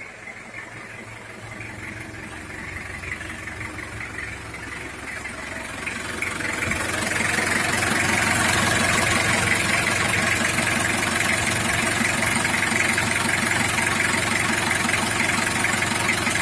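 2001 Toyota Kijang Kapsul diesel engine idling with a steady rhythmic clatter, growing louder over the first several seconds and then holding steady.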